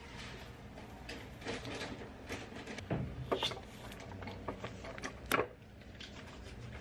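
Scissors snipping and tearing thin plastic shrink-wrap off one-litre milk cartons, with crinkling of the film and cartons handled and knocked on a hard counter, the loudest knock a little past five seconds in.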